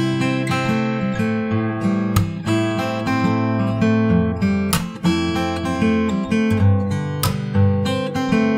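Background music led by a strummed acoustic guitar, with chord strokes sounding about every two and a half seconds.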